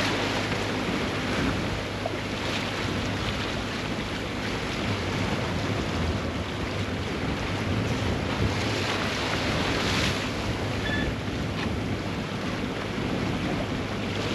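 Wind buffeting the microphone and water rushing along the hull of a yacht under way, over a steady low hum.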